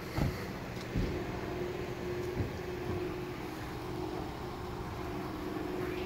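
Police car engine idling with a steady hum, with a few short dull knocks in the first couple of seconds.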